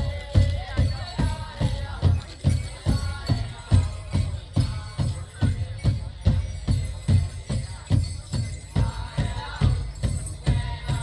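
Powwow drum group playing an intertribal song: a large shared drum struck in a steady, even beat of about three strokes a second, with the singers' high chanting rising over it near the start and again toward the end.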